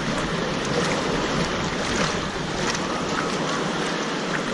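Water park wave pool: a steady rush of washing water, with some wind on the microphone.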